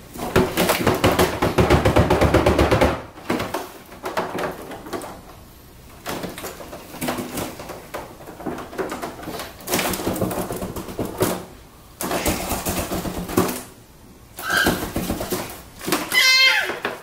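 A foil (mylar) balloon crinkling and rustling as it is shaken, dense and continuous for the first few seconds, then in shorter bursts. A baby gives a short, high squeal near the end.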